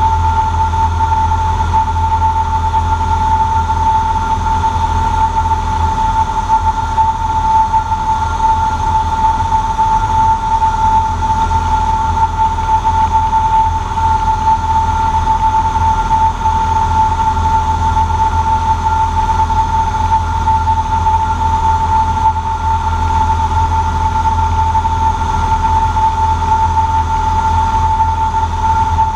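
Cessna 150J's four-cylinder Continental O-200 engine and propeller droning steadily, heard inside the cabin in flight, with a steady high whine over a deep rumble.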